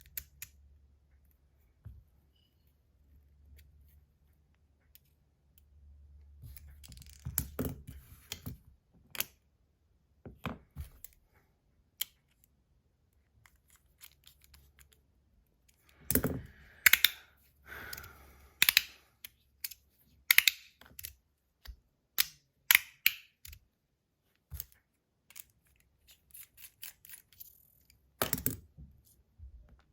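Stainless steel Rapt fidget slider being worked by hand: sharp clicks in irregular clusters with quiet gaps between, as the slider snaps between its magnetic click positions.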